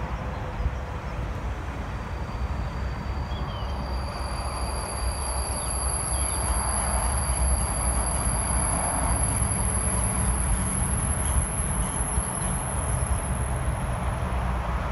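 Eurotunnel Krupp diesel locomotives approaching with a test train, the engine and rail noise growing louder through the first half. A heavy gusty low rumble of wind on the microphone runs underneath, and a thin steady high whine sounds through the middle.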